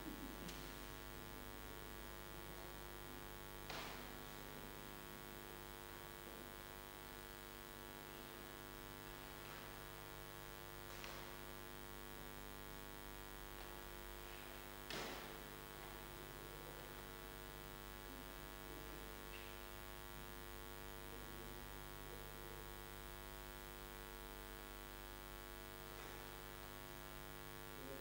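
Steady electrical mains hum with many overtones, with a few faint knocks, the clearest about 15 seconds in.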